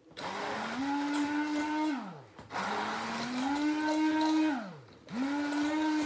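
Hand-held stick (immersion) blender whizzing in a bowl of lemon cream and mascarpone to emulsify it. It is switched on three times, each time whining up in pitch to a steady speed; the first two runs wind down with a falling pitch, and the third keeps going.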